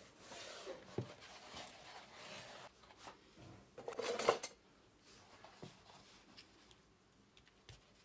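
Desk handling sounds: a notebook slid and rubbed on the desktop, then a pen pulled out of a metal pen cup with a brief rattle about four seconds in, the loudest moment. Faint taps follow.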